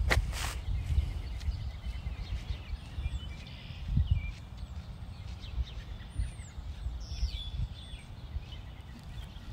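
Wild birds chirping and calling now and then over a low rumble, with footsteps on a dirt road.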